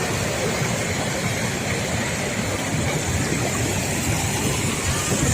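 Waterfall: a steady, loud rushing roar of falling water.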